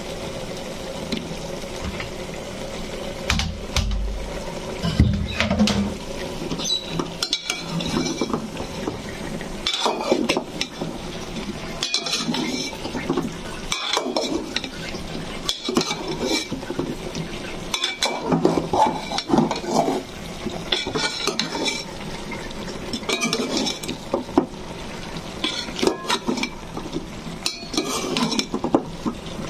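A metal spatula scraping and clinking against an aluminium pot as chunks of taro are stirred into the spice masala, in strokes every couple of seconds. There are a couple of dull knocks about four and five seconds in.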